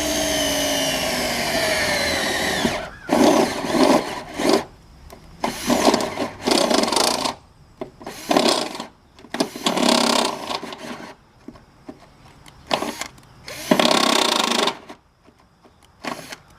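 Cordless drill boring a hole through a car body panel: the motor's whine falls in pitch as it bogs down over the first few seconds, then about six short drilling bursts with pauses between. The drill is slowing as if its battery is going dead, as the owner thinks.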